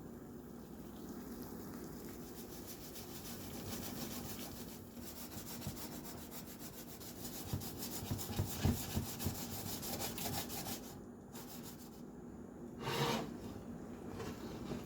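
Steady rubbing and scraping kitchen noise, with a few soft knocks about eight to ten seconds in and a brief louder scrape about thirteen seconds in.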